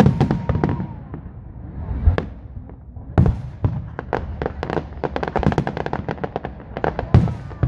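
Aerial firework shells bursting: a few deep booms, then a long stretch of rapid crackling pops, and another boom near the end.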